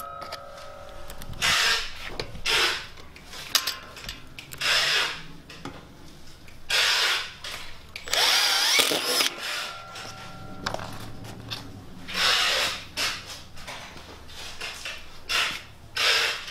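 Cordless power drill driving wood screws through steel leg brackets into a plywood table top, in a series of short bursts with brief pauses between.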